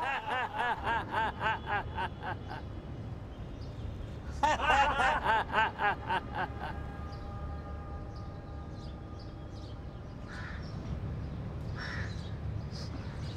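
A group of people laughing together in rhythmic 'ha-ha-ha' bursts, as in a laughter-yoga exercise, in two runs a couple of seconds apart. The laughter is followed by a few seconds of faint steady held tones.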